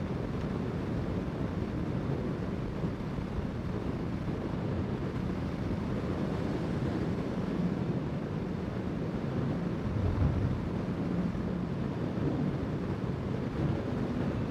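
Steady wind rush on the microphone over the low drone of a Honda CBR650R's inline-four engine while cruising on the motorcycle.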